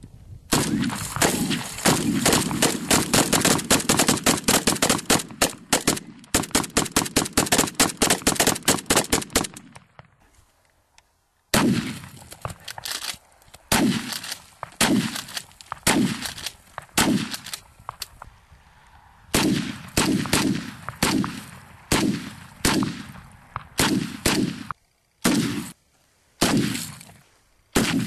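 Gunshots at ice blocks: a long string of rapid shots for about nine seconds, then, after a short pause, single shots at about one a second.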